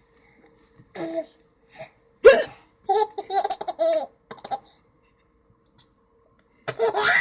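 A young child hiccuping and laughing. The sound comes in short, sharp, separate bursts, with a longer run of laughter about three to four seconds in and another loud burst near the end.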